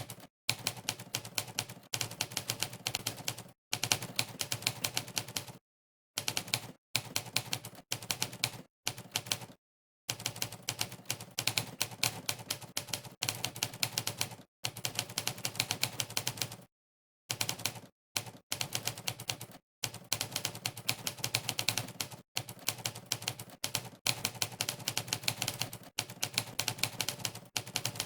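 Monkeytype's typewriter key sound effect: rapid sharp clacks, one per keystroke, in quick runs broken by short pauses of dead silence between bursts of typing.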